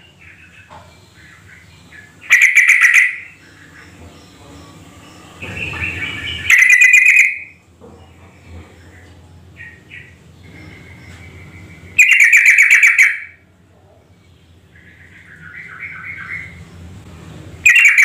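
Yellow-vented bulbul (trucukan) singing: four loud, rapid phrases about a second long each, with quieter warbling notes between them.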